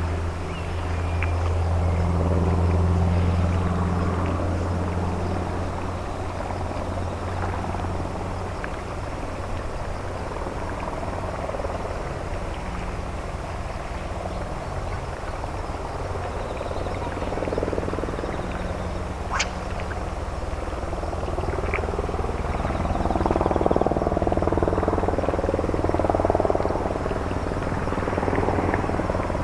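Low, steady drone of a ship's diesel engine with a throbbing mid-range rumble. The drone is strongest in the first several seconds. A single sharp click comes about 19 seconds in.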